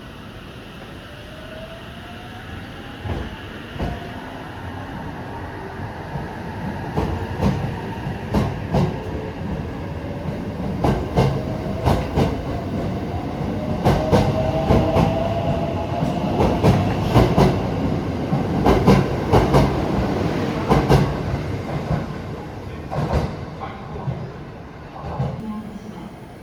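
Electric train running past, wheels clattering over rail joints in quick clacks, with a rising whine from its traction motors. It grows louder to a peak about three-quarters of the way through, then fades.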